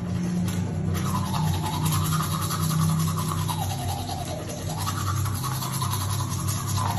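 Teeth being brushed with a toothbrush: a continuous run of quick scrubbing strokes whose tone drifts up and down as the brush moves, over a low steady hum.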